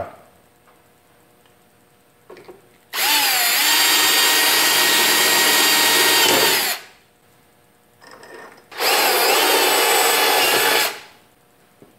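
Cordless Milwaukee drill running at speed in two long runs, the first about three and a half seconds and the second about two, each with a steady motor whine; the pitch dips briefly just after the first run starts. Faint knocks come in the pauses.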